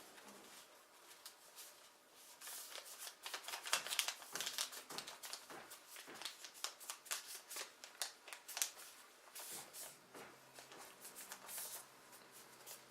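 A sheet of paper being folded and creased by hand, rustling and crackling in quick irregular bursts, busiest from about two seconds in until near the end.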